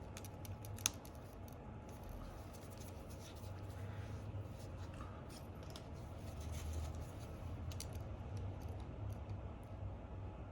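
Faint clicks and scratching of small phone parts and tools being handled during reassembly of a Samsung S23, with one sharp click about a second in.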